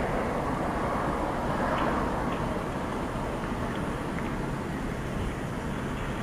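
Steady outdoor rushing noise, a mix of low rumble and hiss, with a couple of faint short high sounds about two seconds in.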